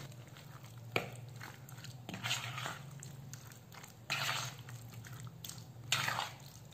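Metal spoon stirring pieces of turkey through a thick yogurt-and-spice marinade in a plastic bowl: wet squelching in a few short bursts, with a sharp spoon click about a second in.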